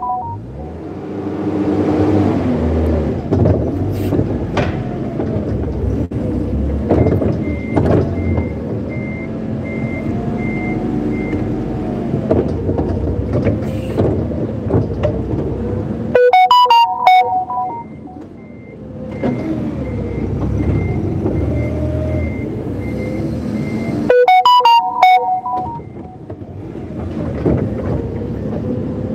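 Forklift running and driving, its motor note rising and falling with speed, while its reversing alarm beeps about twice a second in two long spells. Two short bursts of musical tones break in partway through.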